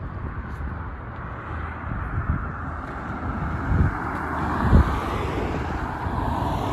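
Outdoor street noise with a vehicle passing, swelling and fading, and low thumps on the microphone about four and five seconds in.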